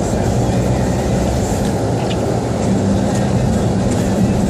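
Car being driven, heard from inside the cabin: a steady, loud low rumble of engine and road noise with no change in pace.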